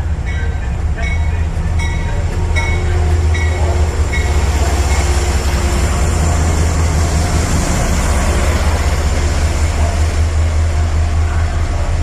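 Amtrak diesel locomotive and passenger train pulling into the station past the platform: a heavy steady engine rumble, with a bell ringing about twice a second for the first few seconds. Then the rushing rolling noise of the passing cars builds and stays loud.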